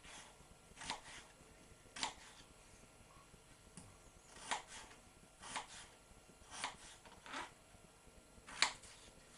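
Kitchen knife cutting through raw potato slices into chips and knocking on a plastic chopping board: about seven sharp chops, a second or so apart with a longer pause in the middle, the one near the end the loudest.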